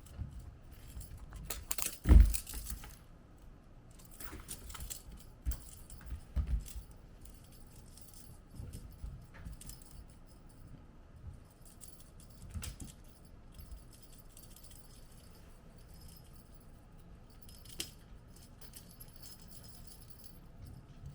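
Kittens playing with toys: light jingling and rattling with scattered soft knocks, and one louder thump about two seconds in.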